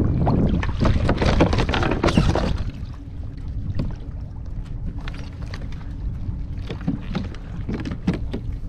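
Water splashing and slapping beside a fishing kayak for the first two and a half seconds or so, then steady wind on the microphone with small splashes and water lapping against the hull.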